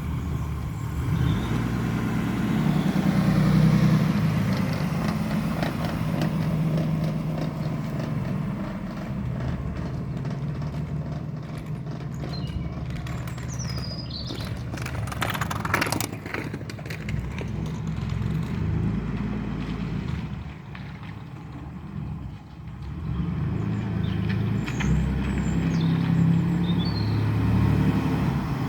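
Ford Granada driving, its engine and road noise running steadily, with short creaks from the right rear. The creak is a newly developed fault whose cause is not yet known.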